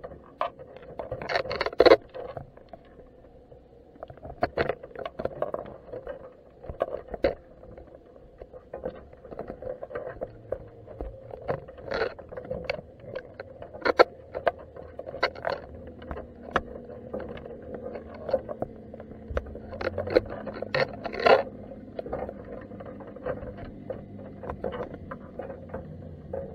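Underwater sound from a camera in a crab pot on the seabed: irregular clicks, taps and knocks over a steady hum, with the loudest clacks about two seconds in and again around twenty seconds in. A deeper steady drone comes in about sixteen seconds in.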